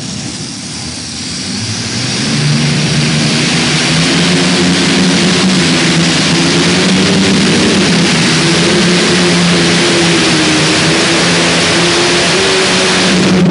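Engine of a light-modified pulling tractor at full throttle under load during a pull. It swells about two seconds in as the tractor launches, then holds as a loud, steady drone with a slightly wavering pitch, and cuts off abruptly at the end.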